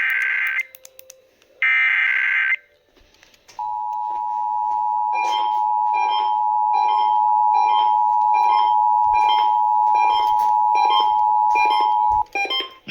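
Emergency Alert System broadcast signal: the last two of the SAME header's digital data bursts, each about a second long, then the steady two-tone attention signal for about eight and a half seconds, marking the start of a Required Monthly Test. A separate beep repeats about twice a second over the tone.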